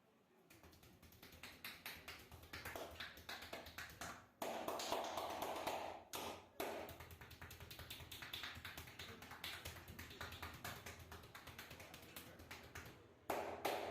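Rapid percussive hand tapping of a massage on the body, a dense run of quick taps that gets louder about four seconds in.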